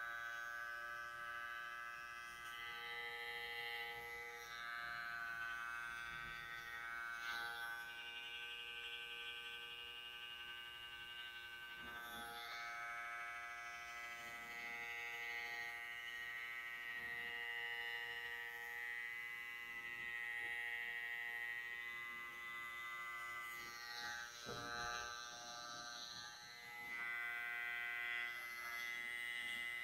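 Cordless electric hair clippers buzzing steadily as they cut short hair over a comb, the pitch shifting slightly a few times as the blade works through the hair.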